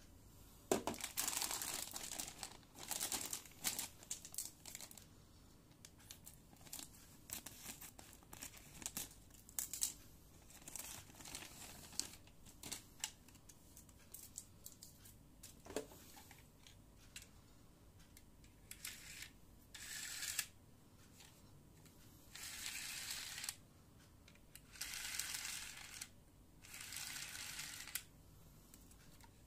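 Clear plastic packaging crinkling and rustling while a toy launcher and its plastic ripcord are unwrapped and handled, with scattered clicks and taps. Longer rustles come in bursts of a second or so in the second half.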